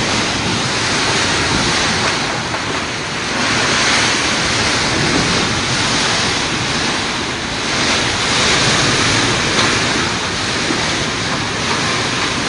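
Typhoon-force wind and heavy rain rushing loudly outside, heard from inside a house, swelling in gusts every few seconds.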